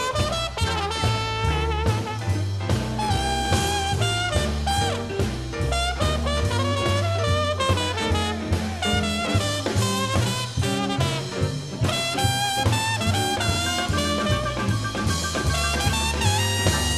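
Live New Orleans jazz band with a trumpet soloing in fast runs of notes, backed by upright bass and drums.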